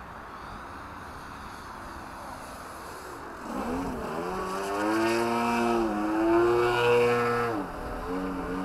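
A motor vehicle engine revving up in a series of rising and falling pitch sweeps, like a car accelerating through its gears. It starts about three seconds in over a steady background hiss and grows louder, with its pitch dropping sharply near the end before climbing again.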